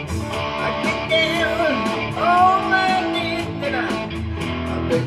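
Rock song played on electric guitar: a strummed instrumental passage between sung lines, with a steady beat.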